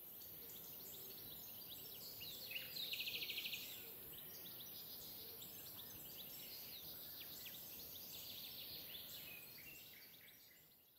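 Faint birdsong: many short chirps and whistles over a steady high hiss, with one fast trill about three seconds in, fading out near the end.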